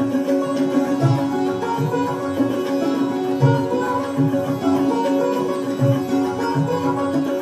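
Sitar being plucked in Hindustani classical style, its melody ringing over a steady drone, with deep low notes recurring every second or so beneath.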